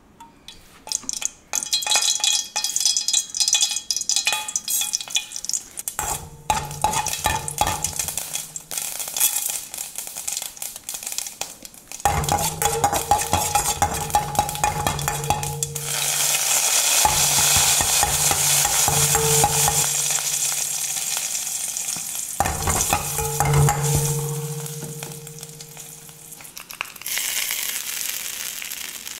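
Mustard seeds and urad dal crackling and popping in hot oil in a steel pan, with a spoon stirring, then a loud steady sizzle. A low steady hum comes and goes, and another burst of sizzling comes near the end.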